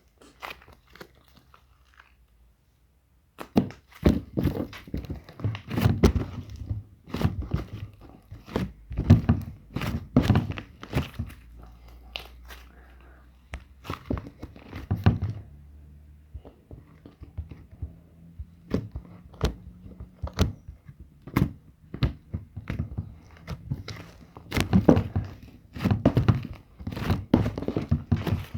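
Slime being squeezed and poked by hand, a long run of sharp wet clicks and squishes starting a few seconds in.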